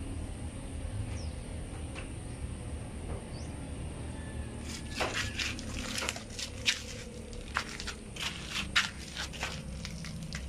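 Low steady hum with a couple of faint high chirps, then from about halfway irregular clicks, crackles and scuffles on a gritty dirt floor where a cat tussles with a snake.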